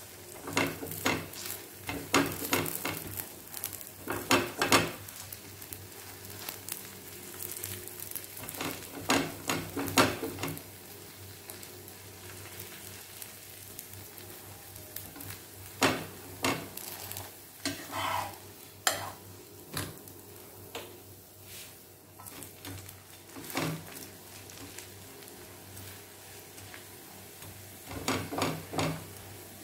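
A folded dosa sizzling on a hot tawa while a spatula presses it flat and scrapes against the pan in short runs of strokes several times, so that it roasts crisp.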